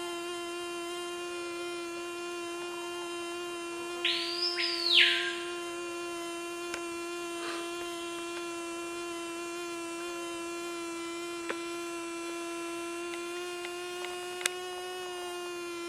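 Mallophora robber fly hovering: a steady wingbeat buzz with many overtones, its pitch wavering slightly. About four seconds in, a short whistle-like sound sweeps up and back down, the loudest thing here, and a couple of faint clicks come later.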